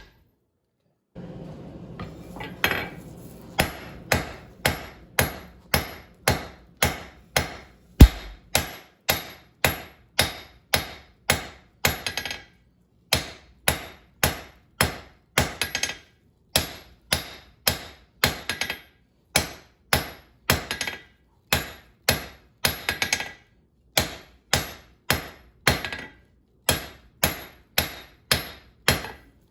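Hammer blows on hot steel at the anvil, struck in a steady rhythm of about one and a half a second, each blow with a short bright ring. The rhythm pauses briefly twice.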